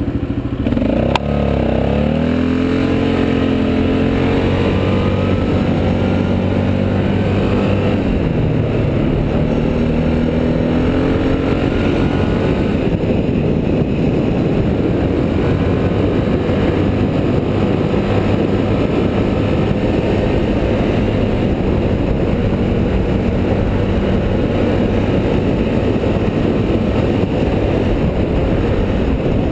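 ATV engine running under way on a dirt road, close to the microphone: its pitch rises and falls with the throttle over the first dozen seconds, then it runs steadily under a heavy rushing noise.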